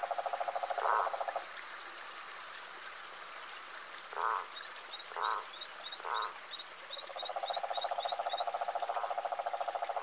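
Frogs calling: a rapid pulsing trill that stops about a second and a half in and starts again near seven seconds, with single louder croaks in the gap. A run of short, high chirps, about three a second, sounds through the middle.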